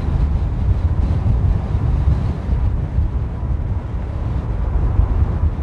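Deep, steady rumble of a jet airliner's engines, mixed with wind buffeting the microphone.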